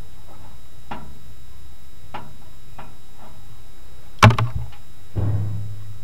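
Light clicks and taps from wires and terminals being handled while they are connected to the AC kit's relay, with one sharp knock about four seconds in, over a steady low hum.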